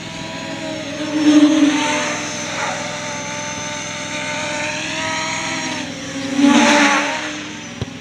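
A quadcopter's electric motors and 8-inch propellers whine in flight, the pitch gliding up and down with throttle, and swell louder twice, about a second in and near the end. It is flying with lowered gains, and the oscillation sound in the motors is gone.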